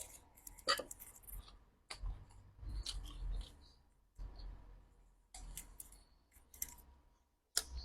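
Close-miked mouth sounds of eating: irregular wet clicks and smacks with soft low chewing thuds.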